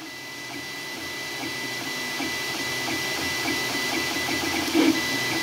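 FlashForge dual-extruder FDM 3D printer running a print: its stepper motors buzz in quick, shifting patterns as the print head moves, over a steady high whine. It fades in over the first couple of seconds, with a briefly louder buzz near the end.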